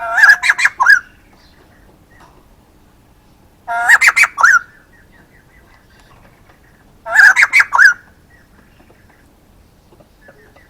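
Male white-crested laughingthrush calling: three loud bursts of quick, gliding notes, each about a second long, roughly three and a half seconds apart.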